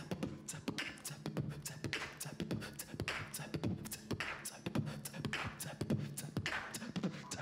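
Live jazz band in a sparse, percussive passage: quick sharp clicks and hits in a steady rhythm over a low double bass line.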